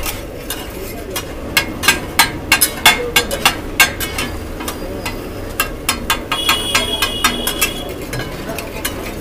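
Metal spatula rapidly clacking and scraping on a large flat metal griddle (tawa), chopping butter and coriander together. The quick clacks are thickest in the first few seconds and then go on more lightly.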